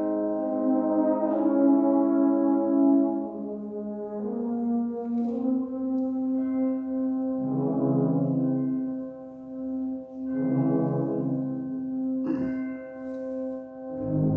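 Concert band playing a slow passage of held chords, with brass prominent. The chords change every few seconds, and lower notes swell in twice.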